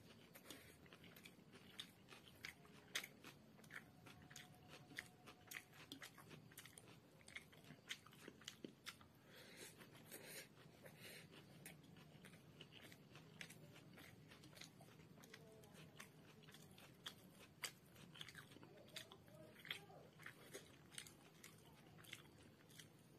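Close-up chewing of a mouthful of chicken chow mein with raw onion slices: wet mouth clicks and soft crunches at an irregular pace.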